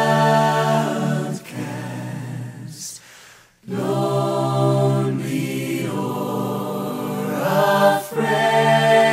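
A choir singing long held chords with no clear words, breaking off briefly a little after three seconds in before the voices return.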